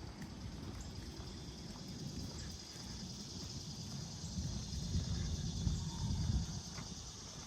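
Outdoor neighborhood ambience: a low, uneven rumble under a steady high hiss, a little louder about five to six seconds in.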